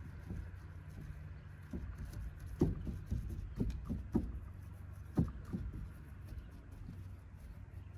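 Irregular knocks and taps, about a dozen in a cluster from about two and a half to six seconds in, over a steady low hum.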